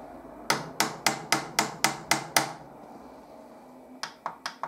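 A quick run of eight sharp mechanical clicks, about four a second, then a pause and three softer clicks near the end.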